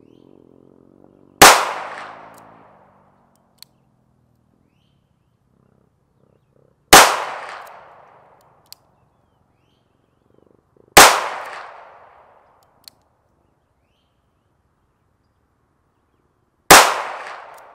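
Four shots from a Taurus 856 .38 Special snub-nose revolver fired single action, several seconds apart, each trailing off in about a second of echo. A light click comes about two seconds after each shot.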